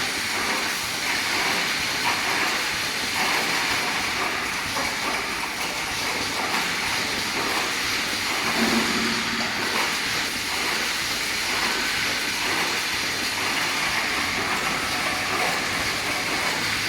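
An automatic rebar mesh welding machine running: a steady mechanical clatter with a constant hiss of air. A brief low hum comes in about halfway through.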